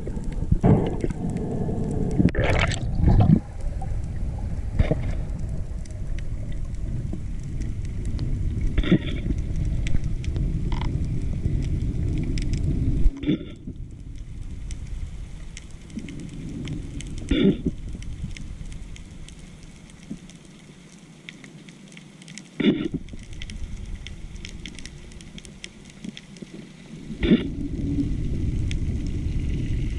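Muffled underwater rumble of water moving past a spearfisher's camera housing, broken by sharp knocks and clicks every few seconds. The rumble fades for a stretch about two-thirds of the way through, then picks up again.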